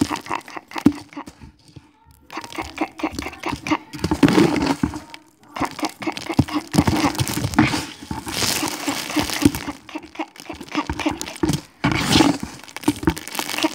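Scissors cutting through a foam squishy toy, with many sharp snips of the blades and short noisy bursts as the foam is cut and pulled apart, broken by brief pauses.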